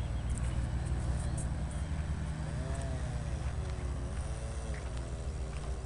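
Radio-controlled model airplane's .46-size engine buzzing in flight, its pitch swelling and falling as the plane passes and turns, over a steady low rumble.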